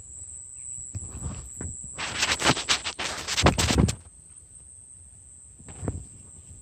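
Insects trill steadily at a high pitch. About two seconds in, a cluster of rustling and knocking noises lasts about two seconds, and a single thump follows near the end.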